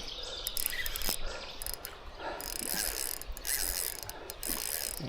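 Fishing reel's drag clicking as a hooked carp pulls line off, in three short buzzing runs in the second half, with a few lighter clicks before them.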